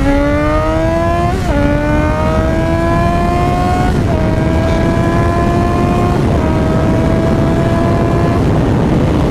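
2009 Yamaha FZ6R's inline-four, breathing through a Hindle exhaust, accelerating hard at wide open throttle. Its pitch climbs steadily through each gear and dips briefly at three upshifts, about one and a half, four and six seconds in. It screams.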